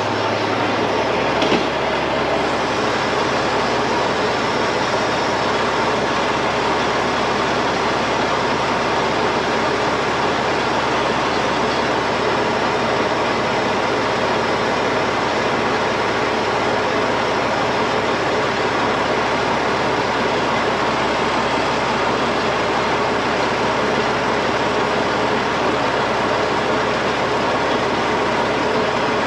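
Heavy diesel machinery running steadily at working speed during a winch recovery, with one sharp click about a second and a half in.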